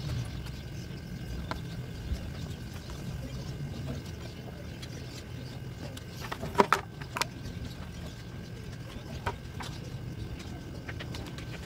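Scissors cutting thin plastic sheet: a few scattered sharp clicks, bunched together in the middle, over a steady low hum.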